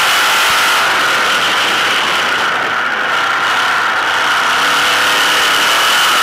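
Sprint car's V8 engine running hard under race load, heard from on board the car. Its sound eases slightly around the middle, then builds again.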